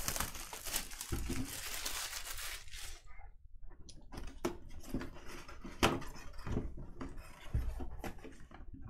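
Clear plastic wrap crinkling and tearing as it is pulled off a cardboard box, a dense rustle for about three seconds. After that come scattered taps and scrapes as cardboard boxes are handled.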